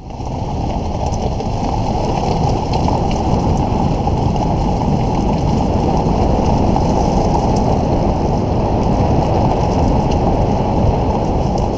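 Steady low rumble of a vehicle driving along a dirt and gravel road: road and wind noise on the camera, with faint scattered ticks, fading in at the start.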